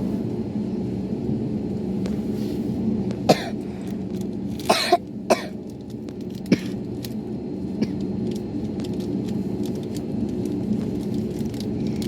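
A person coughs and clears their throat several times, in short sharp bursts between about three and seven seconds in, over a steady low hum.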